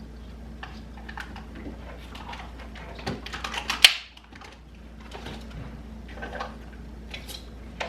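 Food containers and packages being moved around and set down in a kitchen: scattered clicks and light knocks, with a quick run of clatter ending in a sharp knock just before four seconds in.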